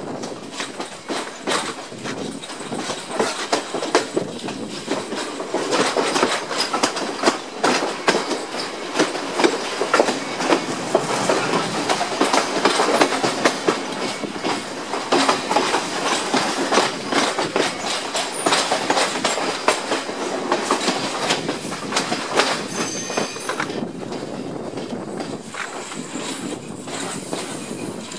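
Class S11 diesel multiple unit's wheels clattering over rail joints and points at low speed, heard from aboard the train, with irregular knocks that are densest through the middle. A brief high wheel squeal comes on the curve late on.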